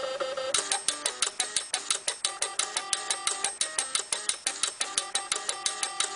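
Stepper motors playing a tune: steady buzzing notes that step from pitch to pitch, with a fast, even clicking beat that starts about half a second in.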